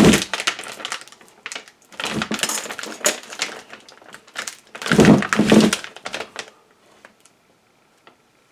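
Heavy N52 neodymium block magnets being handled, clicking and clacking against each other and hard surfaces in three bursts of clatter, then falling still about two seconds before the end.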